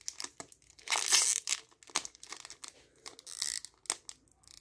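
Foil Yu-Gi-Oh! booster pack wrapper crinkling as it is handled and pulled at to tear it open, with a louder ripping burst about a second in and another about three and a half seconds in; the foil is resisting being torn open.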